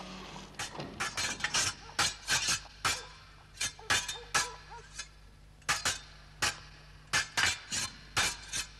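Sword blades clashing in a fencing bout: irregular sharp metallic clinks with a short ring, often in quick runs of two or three strikes with brief pauses between.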